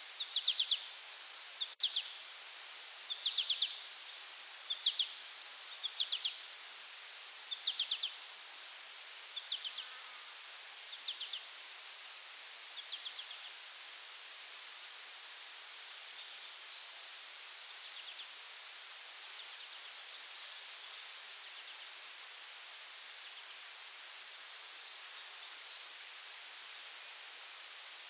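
Forest insects keeping up a steady high-pitched drone with a faint fast ticking. Over the first half, short chirps repeat about once every second or so, growing fainter until they stop.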